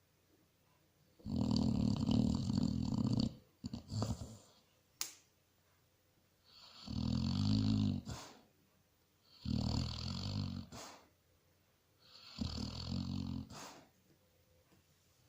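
Basset hound snoring in its sleep: four long snores about every three seconds, with a couple of short snorts in between.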